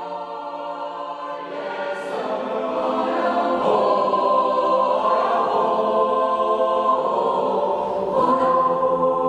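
Mixed chamber choir singing a cappella in held, sustained chords. The voices swell louder about a second and a half in.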